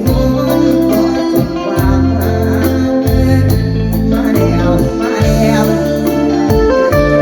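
Live mor lam band music: a steady drum beat and held bass notes under an organ-like melody.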